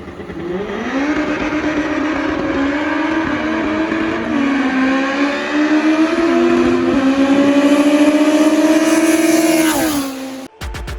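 Car engine accelerating hard through the gears: its pitch climbs, drops back at shifts, climbs again, then falls and cuts off suddenly near the end.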